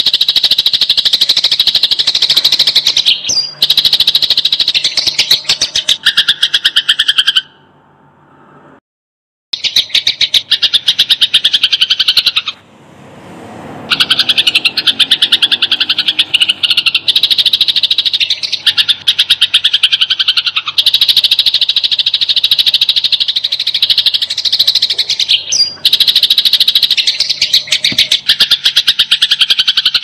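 Sparrows giving rapid, dense trains of chirps, the harsh chatter of sparrows fighting. The chatter breaks off twice, briefly near eight seconds in and again just before fourteen seconds.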